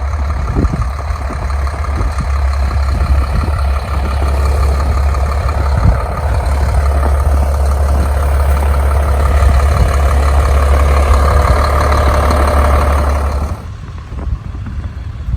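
A heavy vehicle engine running steadily with a deep hum, which cuts off abruptly near the end.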